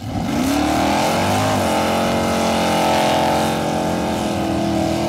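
Dodge Charger drag car doing a burnout: the engine revs climb quickly at the start and are then held high and steady while the rear tyres spin.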